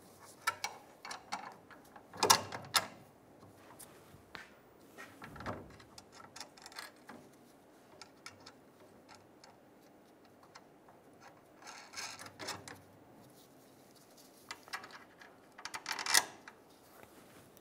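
Small metal clicks and taps of lock washers and nuts being handled and threaded by hand onto bracket bolts, with a few louder clinks about two seconds in, around twelve seconds and near the end.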